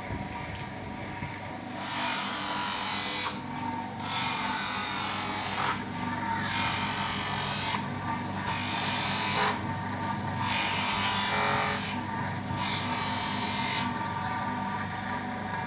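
Manual lens edger grinding a spectacle lens by hand. The wheel's motor hums steadily, and the lens is pressed to the wheel in about six strokes of a second or so each, starting about two seconds in, each giving a rough grinding hiss.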